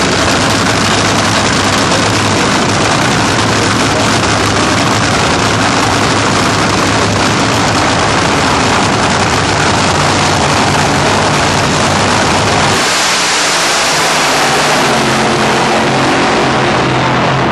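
Pro Mod drag cars' engines running very loud at the starting line, a dense, steady wall of engine noise. About thirteen seconds in it changes abruptly to engine sound with a steady low hum of clear pitches.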